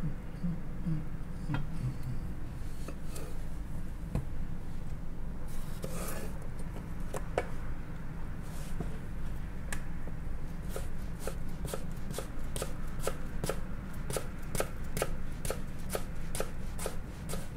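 Kitchen knife cutting through cucumber and striking a wooden cutting board: scattered cuts at first, then a quick, even run of cuts about three a second in the second half, over a steady low hum.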